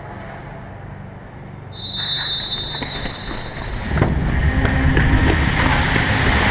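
A single high, steady whistle tone sounds about two seconds in and holds for over a second, over a low hum. From about four seconds a loud, continuous rumbling noise with scattered clicks takes over.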